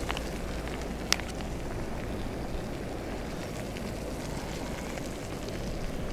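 Portable camping gas stove burner running steadily, an even hiss, with one sharp click about a second in.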